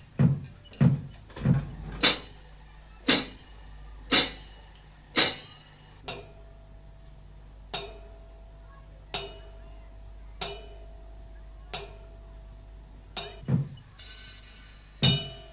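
A drum struck one stroke at a time with a round-headed mallet. It opens with a few quick strokes, settles to about one a second, then slows further, with a quick pair near the end. The later strokes leave a steady ringing tone.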